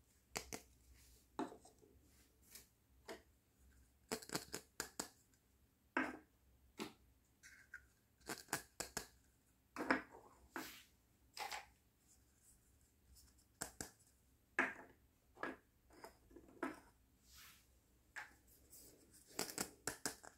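Small plastic toy kitchen pieces, a toy gas cylinder and toy cups, handled and set down on a tabletop: irregular light clicks and taps, some in quick little runs.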